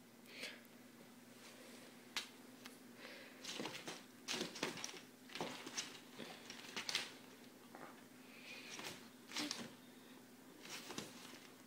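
Kitten moving about inside a mesh pop-up hamper on a wooden floor: faint scattered rustles, scratches and small taps of the mesh and frame, in a cluster a few seconds in and another near the end.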